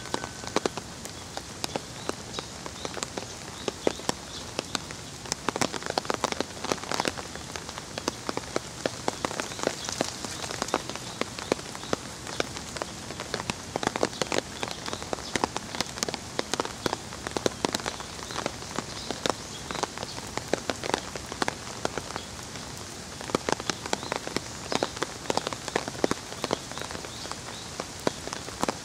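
Steady rain falling, with many irregular drops ticking sharply close by.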